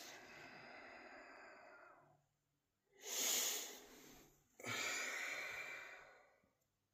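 A person breathing heavily in the sleeping bag: three long, breathy sighs, the middle one about three seconds in the loudest and hissiest.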